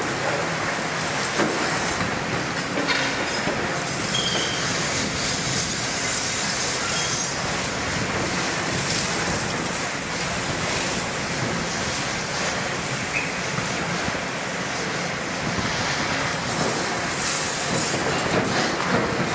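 Heavy demolition excavators handling iron scrap: continuous engine and hydraulic noise overlaid with metal grinding, clanking and knocking as the grapples grab steel scrap and drop it into a steel container, with occasional brief high metallic squeals.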